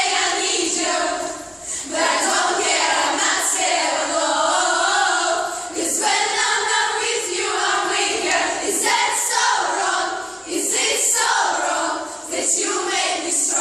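A group of girls singing together without accompaniment, several voices overlapping unevenly, with brief dips between phrases.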